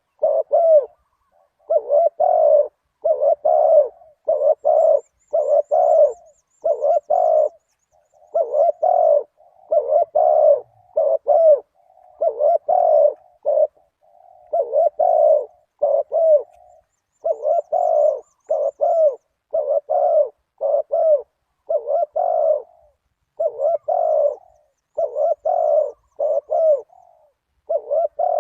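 Spotted dove cooing over and over in short phrases of three or four notes, with hardly a pause between phrases. A faint, high twittering from a small bird comes in twice.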